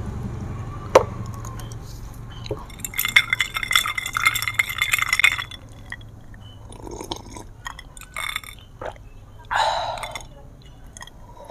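Whisky poured from a bottle into a glass: a glass clink about a second in, then a splashing, ringing pour lasting about two and a half seconds. A few quieter knocks follow, and a short sip as the glass is drunk from near the end.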